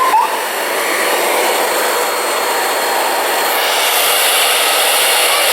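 Hand-held hair dryer running, a steady rushing blow; about three and a half seconds in its sound turns brighter and more hissy.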